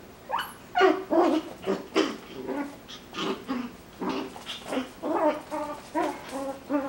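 Coton de Tulear puppies play-fighting: a quick run of short yips, whines and play growls, several a second.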